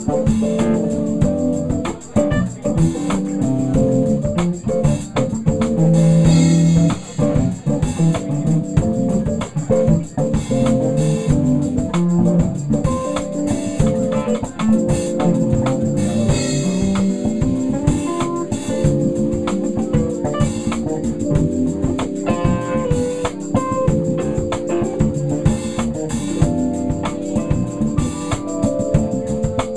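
A live band playing: electric guitar over a drum kit, with held guitar notes and steady drum and cymbal hits throughout.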